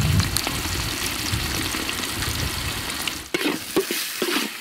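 Eggs sizzling as they fry in oil in a hot wok. From about three seconds in, a series of strokes: a metal spatula scraping against the wok as it stirs and breaks up the eggs.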